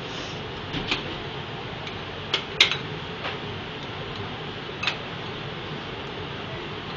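Glass petri dishes clinking and tapping as they are handled on a steel work surface: about five short sharp clicks, the loudest about two and a half seconds in. Under them runs the steady blower noise of a biosafety cabinet.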